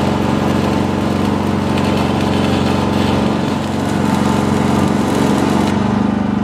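Stick-welding arc crackling and spitting over the steady drone of a small engine; the crackle stops near the end while the engine keeps running.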